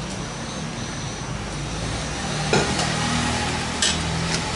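A metal ladle clinks against a stainless steel pan of beef-bone broth twice, about a second apart, over a steady hiss with a low hum.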